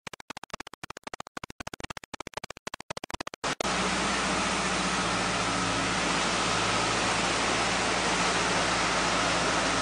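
A wheel loader's diesel engine running, heard as a low steady hum under a steady rushing noise. For the first three and a half seconds the sound stutters on and off many times a second.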